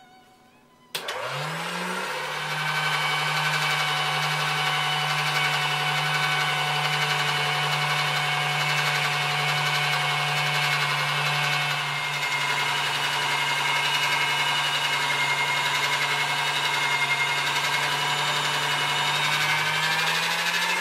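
Electric motor of a pasta roller switching on about a second in, spinning up and then running with a steady hum as a sheet of ravioli dough feeds through the steel rollers.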